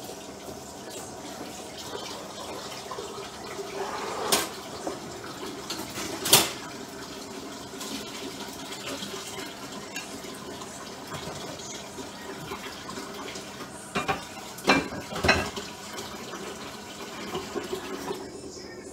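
Kitchen tap running into a sink full of dishes, with sharp clinks and clatters of pots, plates and utensils being handled in it. The loudest clank comes about six seconds in, and a quick cluster follows near fifteen seconds. The water stops near the end.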